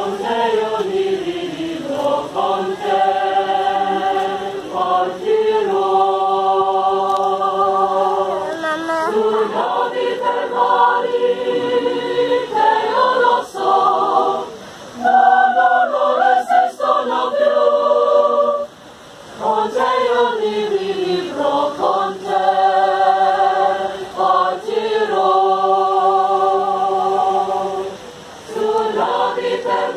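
A choir singing unaccompanied in long held chords, the phrases separated by brief pauses.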